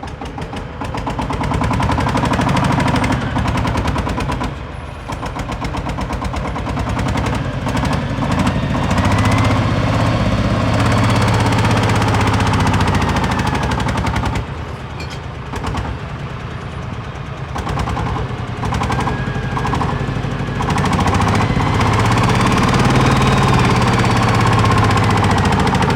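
Excavator's heavy diesel engine clattering as it works. It revs up twice under load, with a whine rising and falling over the engine.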